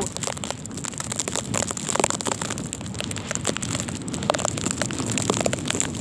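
Blizzard wind rushing across the microphone, with many small ticks of wind-driven snow striking it.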